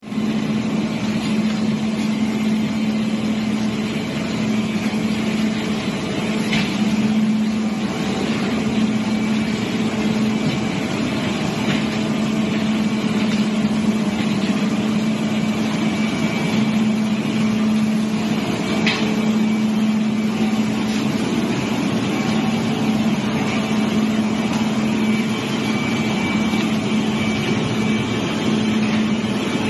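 Industrial plastic-waste shredder and its infeed conveyor running: a steady mechanical drone with a strong constant hum. Two sharp cracks stand out, one about a fifth of the way through and another about two-thirds through.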